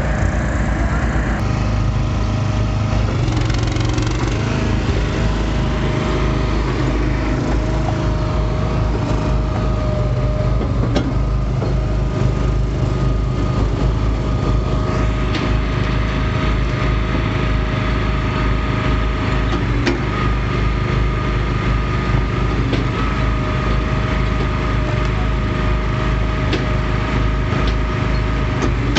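Small gasoline engine running steadily at an even speed, as on a log splitter, with a few sharp knocks and cracks of wood now and then.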